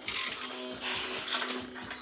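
Harmonic balancer puller being tightened by hand with a ratchet, its clicking coming in repeated strokes, as the forcing screw pushes against the crankshaft to draw the LT1 crank hub off.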